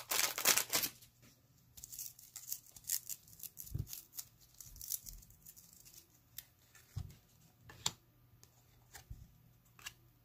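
A card-pack wrapper crinkling and tearing in the first second. After that come scattered light clicks and rustles of baseball cards being handled.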